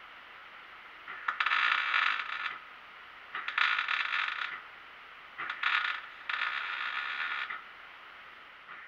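MIG welding arc crackling on the steel tank in four separate runs, each lasting about half a second to a second and a half, with the last two close together.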